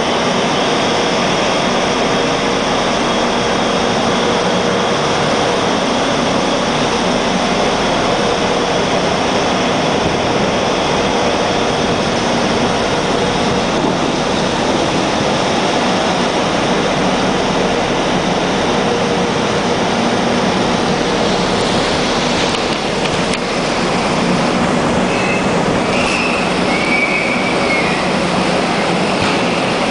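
Steady loud rush of ship machinery and wind on a tanker's open deck, with a faint steady hum underneath. A few short, wavering high squeaks come in about 25 seconds in and again near the end.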